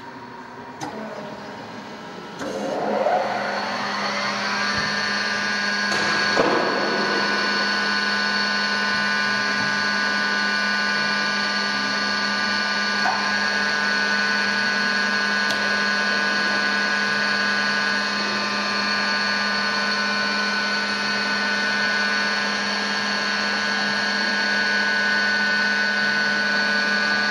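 Tschudin HTG 630 cylindrical grinder's motors starting up: a whine rising in pitch over about two seconds, then running at speed with a steady hum and several steady tones.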